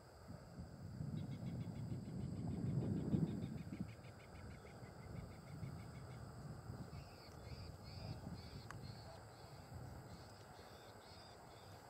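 Small birds calling across an open field: a fast high trill in the first few seconds, then a run of repeated chirps, about two or three a second, in the second half, over a low rumble that swells and fades in the first four seconds.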